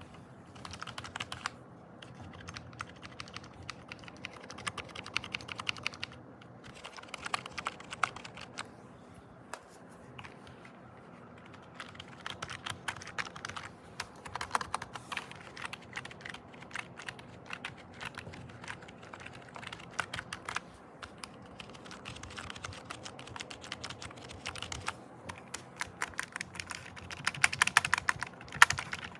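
Typing on a wet membrane keyboard: runs of quick key presses in bursts with short pauses, busiest and loudest near the end.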